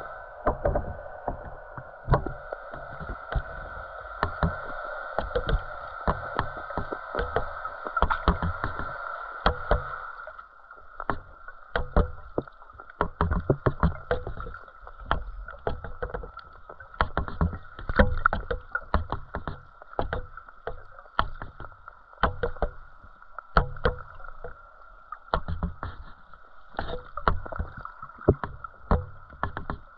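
Muffled underwater sound heard through a GoPro's waterproof housing: a steady hum with irregular knocks and clicks, coming thick and fast from about ten seconds in. The knocks come from the bread-filled wire feeder rig that fish and a turtle are feeding at.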